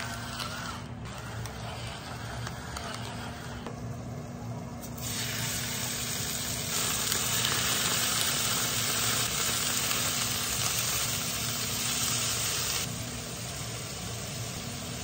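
An electric salt-and-pepper mill whirs for about a second at the start. About five seconds in, loud frying sizzle begins as cubes of beef steak are laid into a hot iron frying pan beside hash browns frying in oil. It grows louder about two seconds later and eases off near the end, with a steady low hum underneath.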